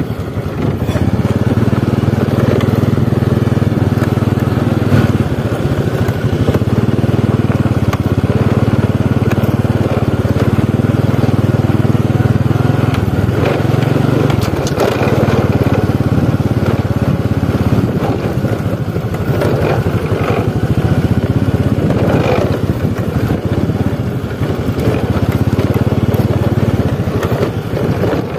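Motor scooter ridden along a rough dirt track: the engine's steady drone, with the rattle and crunch of the tyres and bodywork over ruts and loose dirt, more frequent in the second half.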